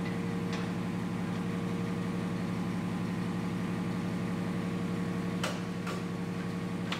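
Steady machine hum like an idling engine, with a few sharp metallic clinks from a steel pry bar levering the engine off its mounts: once about half a second in, twice near the end, and once at the close.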